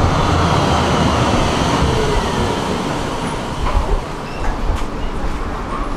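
Tram running past close by, its rumble and a falling whine fading away over the first four seconds as it pulls clear of the stop, leaving quieter street traffic.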